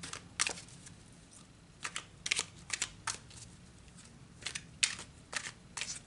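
A tarot deck being shuffled by hand: about a dozen short, crisp card snaps at uneven intervals.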